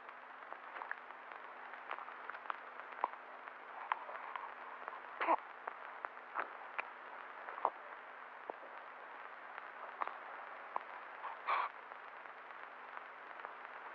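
Steady hiss and faint hum of an old film soundtrack, dotted with scattered clicks and crackles and a few slightly louder short sounds.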